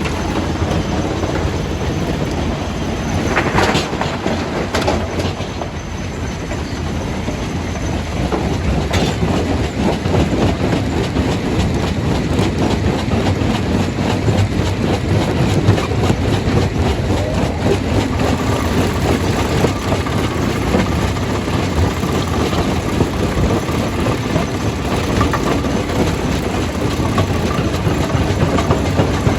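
Stone crusher machine crushing rock: a steady heavy rumble with dense rattling and knocking, and one sharper crack about three and a half seconds in.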